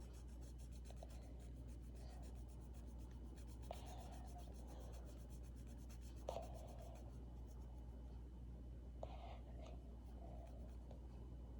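Faint scratching of a drawing tool moving across paper, with a few light taps, the clearest about six seconds in, over a low steady hum.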